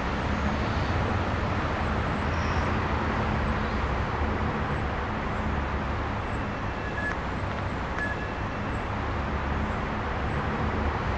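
Steady outdoor background noise, a constant low rumble and hiss, with faint high chirps of small birds scattered through it and two faint ticks about seven and eight seconds in.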